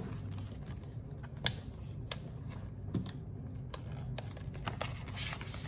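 Clear plastic zipper pouches and pages being handled and turned in a ring binder: a scatter of light, irregular clicks and crinkles.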